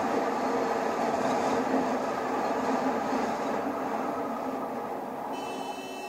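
Motor scooter engine running steadily under way, mixed with road and wind noise from riding. It slowly grows quieter, and near the end a brief high steady tone sounds.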